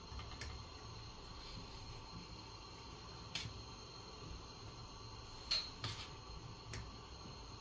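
Metal ladle clinking lightly against a stainless steel stockpot about five times as foam is skimmed off boiling lamb, over a faint steady background hiss.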